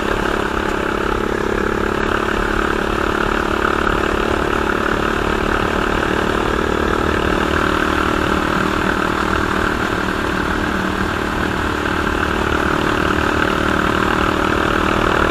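Homemade off-road buggy's engine running at a steady pitch while driving on a dirt road, with a low rumble from the road and chassis underneath.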